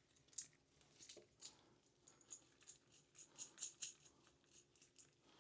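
Near silence with faint small clicks and scrapes, a few more of them around the middle: nuts and washers being unscrewed and taken off new toilet closet bolts.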